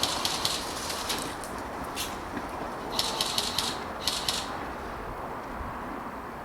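Airsoft guns firing several short bursts of rapid clicking shots, which stop after about four and a half seconds, over a steady background hiss.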